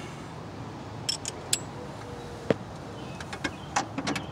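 Click-type torque wrench ratcheting nuts tight, a scattering of short metallic clicks with one sharper, louder click about two and a half seconds in, the wrench breaking as the set torque is reached.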